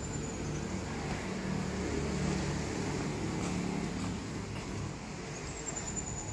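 SRT diesel-electric locomotives idling, a steady low engine hum that holds an even pitch throughout.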